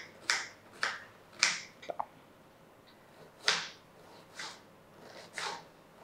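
Kitchen knife chopping a red onion into small pieces on a wooden cutting board: sharp, unevenly spaced chops, with a pause of about a second and a half in the middle.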